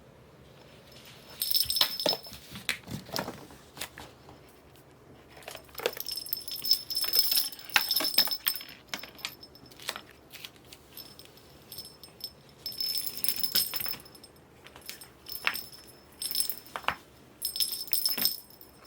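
A small bell jingling in irregular bursts of a second or two as a kitten plays, with soft knocks and scuffles in between.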